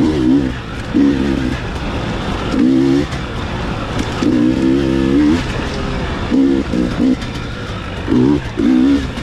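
Dirt bike engine revving up and falling back in repeated short bursts of throttle, about eight in all, with the longest around the middle, over a steady low engine drone.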